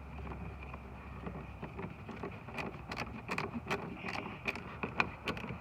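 Irregular light clicks and taps of hands handling the plastic door handle and interior door trim, sparse at first and coming thick and fast in the second half.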